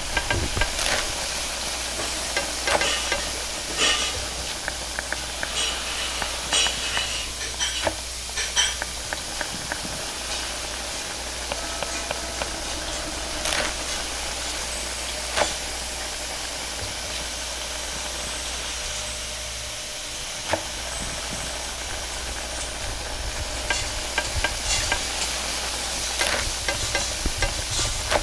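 Noodles being stir-fried in a wok over a high-flame gas wok burner: a steady sizzling hiss with frequent clicks and clanks of metal utensils scraping and striking the wok. The clatter is busiest in the first several seconds and again near the end, sparser in the middle.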